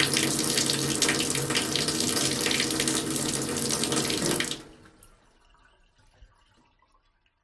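Bathtub faucet running, a steady rush of water splashing into the tub. It stops abruptly about four and a half seconds in, leaving faint trickles and drips.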